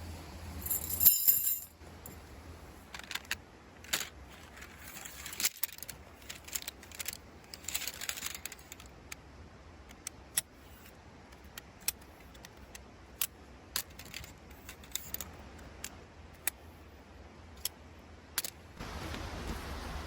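A brief metallic jingle about a second in, then scattered sharp clicks and clinks; an even rushing hiss comes in near the end.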